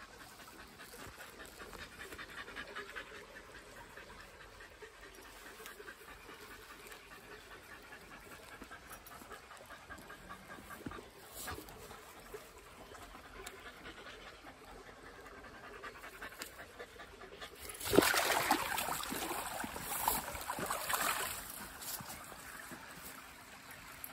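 Shiba Inu dog panting in a fast, even rhythm, with a loud noisy scuffle lasting a few seconds near the end.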